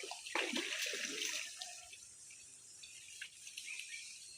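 Water splashing and trickling, busier in the first second or so, then settling to a quieter trickle with a few drips.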